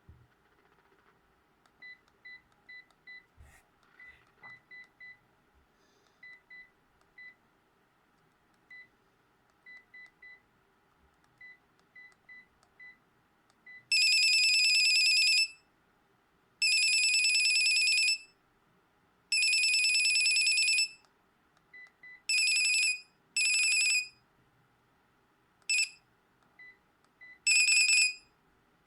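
Sharp GX15 mobile phone: short soft beeps at irregular intervals, like key tones while a menu is scrolled. About halfway through, a loud buzzy electronic ringtone starts, with three long tones of a second and a half each followed by shorter ones.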